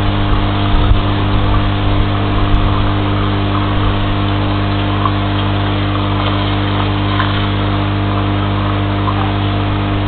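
A steady machine-like hum made of several fixed tones over an even hiss. Low rumbling thuds come and go in the first two and a half seconds.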